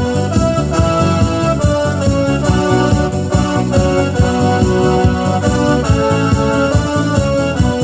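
Electronic keyboard playing a gospel song melody in sustained, organ-like tones over a steady rhythmic bass accompaniment.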